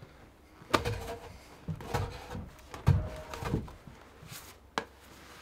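Boots stepping on a wooden plank floor and a half-round log being lifted and shouldered, with a series of hollow wooden knocks and thuds; the loudest come about a second in and near the middle.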